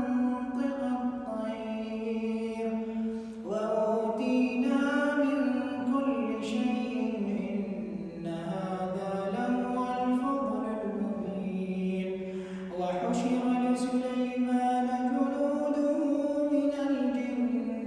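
Quranic recitation: a solo male voice chanting verses in melodic tajweed style, with long held notes that wind up and down in pitch. A new phrase begins about three and a half seconds in and another near the thirteenth second.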